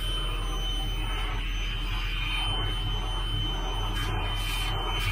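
Log loader's diesel engine running steadily, heard from inside the cab: a constant low drone with a thin steady high-pitched whine over it.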